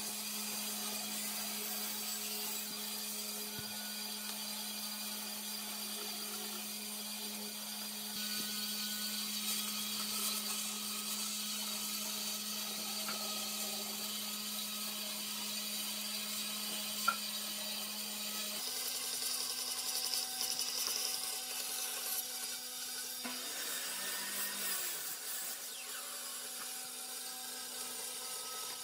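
Bench band saw running with a steady motor hum while its blade cuts through wooden boards. The hum steps slightly higher about two-thirds of the way through, and there is one sharp click a little past the middle.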